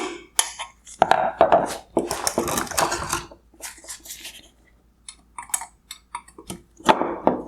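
Clicks and clatter of hard plastic headlight parts being handled as a wire harness connector is unclipped, with sharp irregular clicks.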